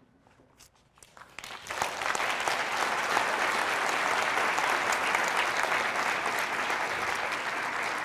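Audience applauding: a few scattered claps at first, swelling into steady full applause about two seconds in.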